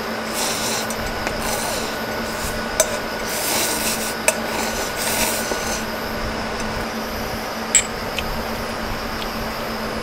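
Dishes and utensils scraping and rubbing at a meal, with three sharp clinks, over a steady hum.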